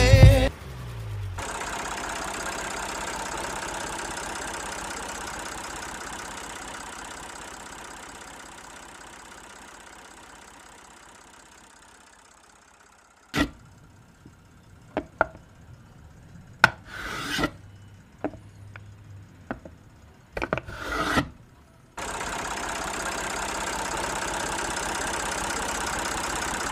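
A motor running steadily, fading down over about ten seconds, then a stretch of scattered clicks and short rattling bursts; the steady running sound starts again abruptly near the end.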